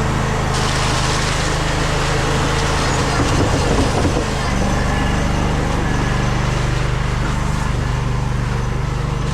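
Concrete mixer truck's diesel engine running steadily, with a dense rushing noise starting about half a second in.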